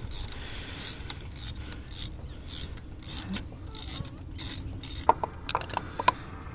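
Hand socket ratchet clicking in short back-swings, about two a second, as spark plugs are being loosened out of the engine. Near the end come a few sharp metallic clinks of tools or parts.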